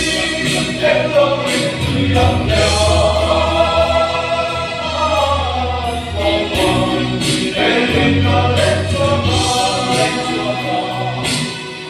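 Men's choir singing a gospel song in parts, holding long chords with short breaks between phrases.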